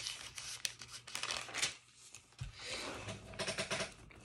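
Paper pages rustling and crinkling as they are handled and turned, with small clicks and taps, in two spells with a short lull between them.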